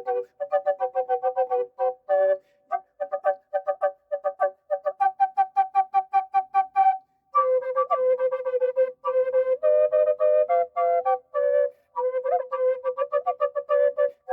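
Native American-style drone flute in cedar, tuned to F# minor at 432 Hz, played: a melody and a drone sound together as two notes at once, in quick separately tongued notes with a couple of short breaths between phrases.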